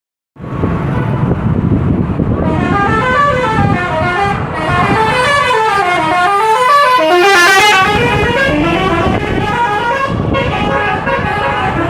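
Indonesian bus telolet horn, a multi-trumpet musical air horn, playing quick runs of stepped notes that run down the scale and back up again, over the low running rumble of a bus engine.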